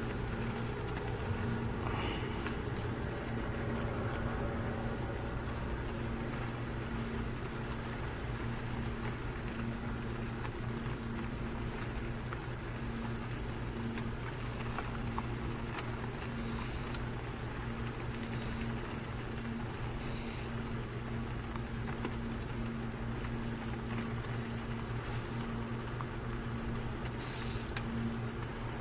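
Steady low background hum with a faint hiss, and from about twelve seconds in a bird's short, high-pitched peeps, seven in all, roughly every two seconds, the loudest near the end.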